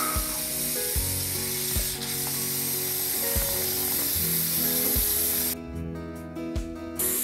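Bathroom sink tap running steadily into a foam-filled basin, over background music with a soft, steady beat. The water hiss drops out for about a second and a half near the end while the music carries on.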